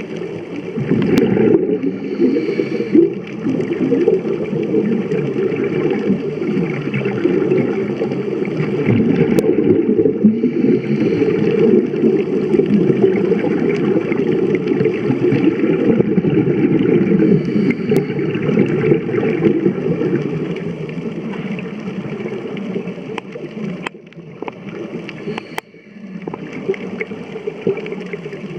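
Underwater scuba sound: a diver's regulator exhaust bubbles gurgling and rumbling almost without pause, easing off near the end.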